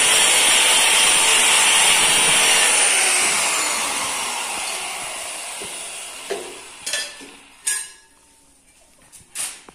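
A loud steady hiss with thin high whines dies away over about five seconds, its pitch falling as it goes. A few short trowel scrapes and taps on tile follow in the quiet.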